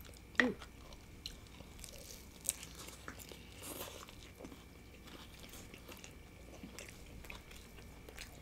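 Close-up mouth sounds of people biting into and chewing soft street tacos: soft wet clicks and crackles, with a louder short mouth sound about half a second in and a sharp click a couple of seconds later.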